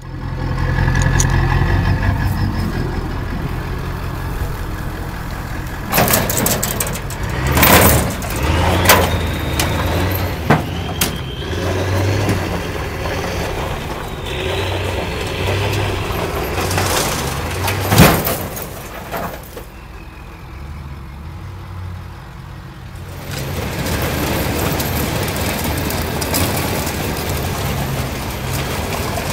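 Pickup truck engine running while it tows a battered demolition derby car, with loud clanks and bangs of loose body metal and a few short high squeals. The engine sound eases off for a few seconds past the middle, then picks up again.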